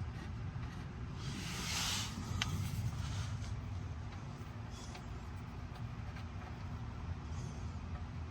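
Engine oil draining from the drain-plug hole into a catch pan: a rushing hiss, loudest about a second and a half in, over a steady low rumble, with a few light clicks.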